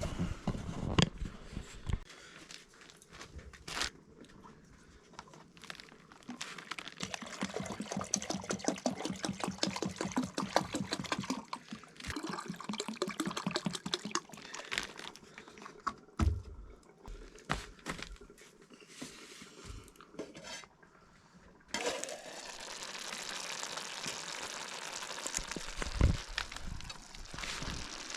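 Kitchen cooking sounds: scattered knocks and clicks of utensils, a stretch of liquid sloshing and pouring, then a steady hiss that starts suddenly a little past the middle.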